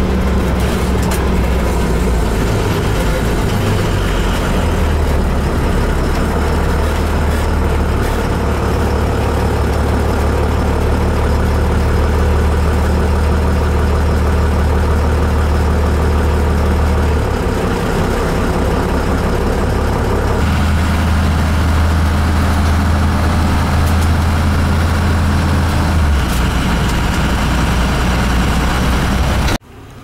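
Engine and road noise inside a work vehicle's cab as it drives: a steady low engine drone that changes pitch a few times as the vehicle speeds up and slows, cutting off sharply near the end.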